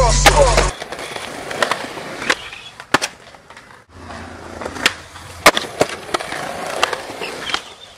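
Skateboard wheels rolling on concrete, with several sharp clacks of the board hitting the ground. Rap music with a deep bass line cuts off about a second in.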